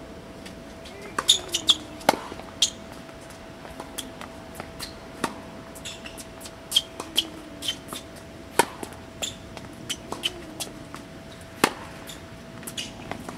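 Tennis rally on a hard court: sharp pops of the ball struck by rackets and bouncing on the court, some loud and close, others fainter from the far end, every second or so, with short high squeaks between them.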